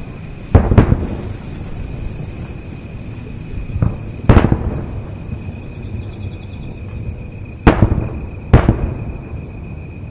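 Aerial firework shells bursting: five or six loud booms, a close pair about half a second in, one just after four seconds, and two more about a second apart near the end, each trailing off in an echoing rumble. A steady high thin tone runs underneath.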